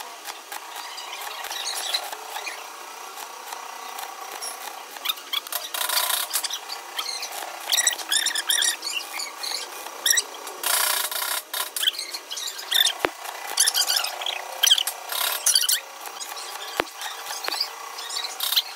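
Stick-welding arc crackling and sizzling in uneven spurts as weld metal is built up on the worn end of a starter motor armature shaft.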